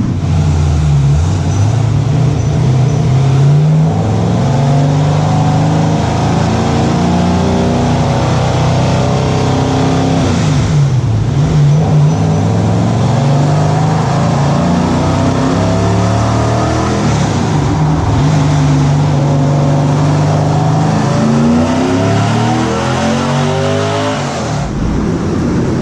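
Sandrail's 6.0-litre LS V8 with LS3 heads making a wide-open-throttle pull in third gear on a chassis dyno: the revs climb steadily, dip briefly about ten seconds in, climb again for most of the rest, then fall away near the end as the throttle is released.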